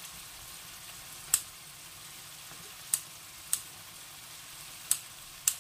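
Kitchen scissors snipping five times, sharp short clicks, over food frying in a pan with a steady low sizzle.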